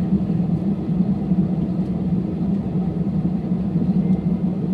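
Steady drone of an airliner's engines and airflow heard inside the passenger cabin, unchanging in pitch and level.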